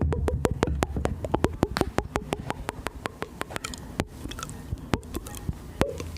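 Close-miked ASMR mouth sounds: rapid wet clicks and smacks, several a second at first, thinning to a few scattered clicks in the second half, over a low rumble.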